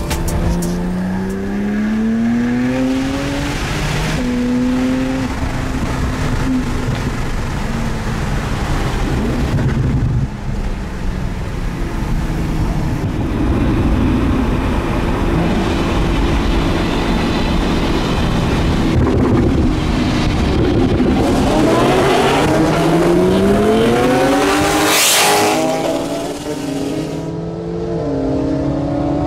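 Porsche 997 Turbo's twin-turbo flat-six heard from inside the cabin, accelerating hard through the gears: the engine note climbs steadily, drops back at each upshift, then climbs again, over road and wind noise.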